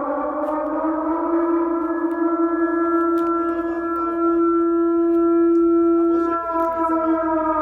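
Air-raid warning siren sounding a steady wailing tone, which dips lower in pitch about six seconds in.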